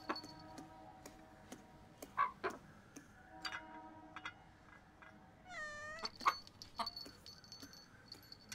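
Rooster pecking food from a steel plate on a tiled floor: faint, scattered taps on the metal, several leaving a short ringing tone. About five and a half seconds in, a cat meows once, briefly.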